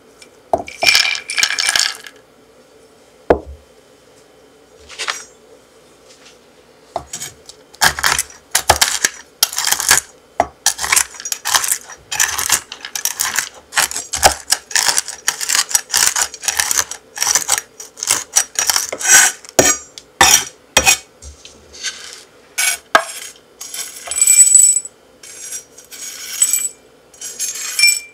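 Shelled pistachios tipped from a ceramic ramekin onto a wooden cutting board, rattling and scattering, then a chef's knife chopping them on the board: many quick knocks and scrapes of the blade against the wood, in uneven bursts for most of the time.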